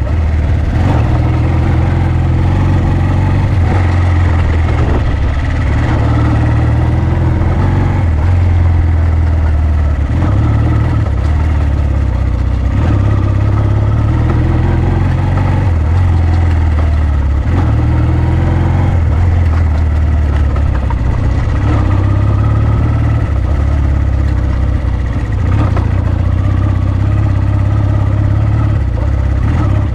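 Honda CD125T Benly's 125 cc air-cooled parallel-twin four-stroke engine running under way, its note rising and falling every few seconds as the throttle opens and closes.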